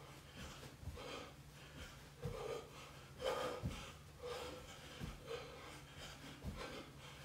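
A man breathing hard through repeated exercise reps, with a sharp breath about once a second. Soft low thumps of his feet on the carpet fall in between.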